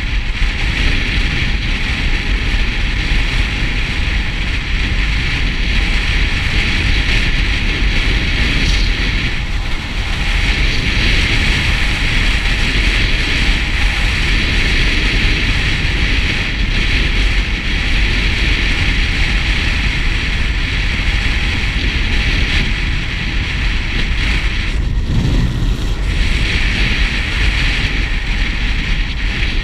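Wind rushing over the microphone of a helmet camera on a moving motorcycle, a steady roar of wind and road noise, dipping briefly about ten seconds in and again around twenty-five seconds.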